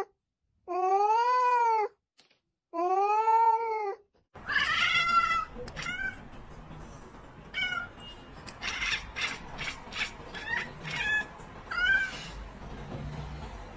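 An orange-and-white cat gives two long meows, each rising and then falling in pitch. Then a black cat makes one higher call and a run of short, high chirps and chattering sounds, over faint background hiss.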